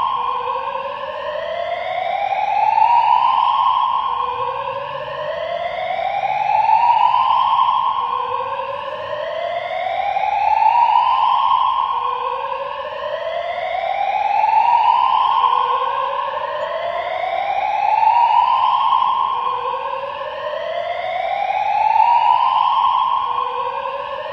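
An electronic siren-like sound rising in pitch again and again, each rise overlapping the next, with a new one starting about every three and a half seconds.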